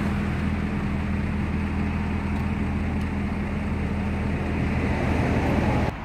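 A vehicle engine idling, a steady low hum that stops abruptly near the end.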